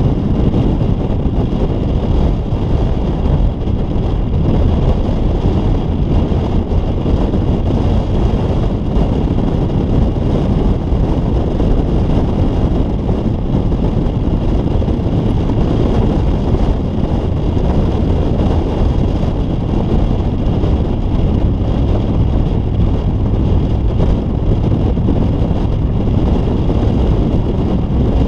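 Steady rush of wind buffeting a roof-mounted microphone, over the road and tyre noise of a Toyota Tundra pickup driving downhill on pavement.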